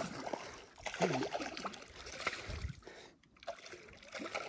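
A hooked bass splashing and thrashing at the water's surface as it is grabbed by hand at the shoreline: irregular small splashes.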